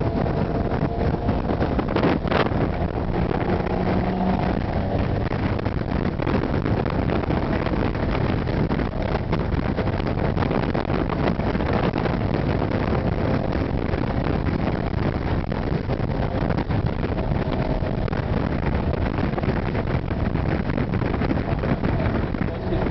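Toyota Supra exhaust note from a straight-through system with a cannon muffler and resonated tip, running steadily while driving. It is heard inside the cabin, mixed with heavy wind and road noise.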